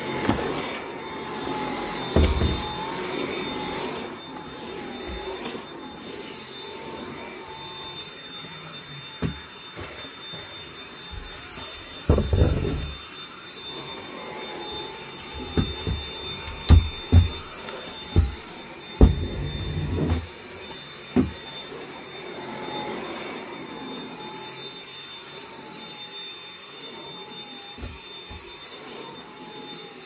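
Stick vacuum cleaner running on carpet: a steady motor whine with a high tone. Several short low thumps break in, most of them between about twelve and twenty-one seconds in.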